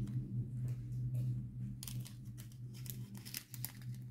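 Scattered light ticks and rustling of small plastic drill packets and containers being handled, over a steady low hum.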